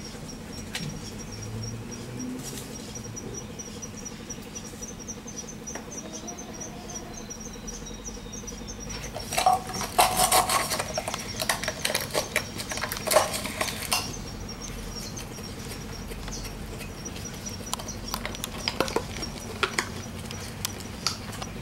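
Beagle puppy chewing a small plastic bottle: crackling, crunching plastic. The chewing comes in a loud run of several seconds in the middle, with a few scattered crunches near the end.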